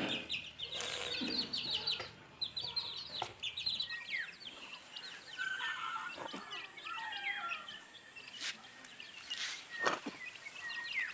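Kadaknath chickens peeping and clucking, many short high calls overlapping. A faint steady high whine comes in about four seconds in.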